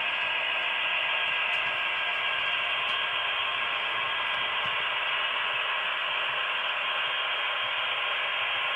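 Steady static hiss, thin and muffled like an open radio channel, with no distinct sound from the model trains.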